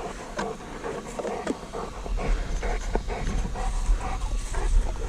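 Bullmastiff panting, in quick short breaths about three a second.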